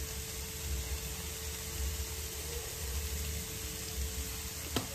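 Chopped chicken livers frying in a pan with a steady sizzling hiss. A sharp click comes near the end.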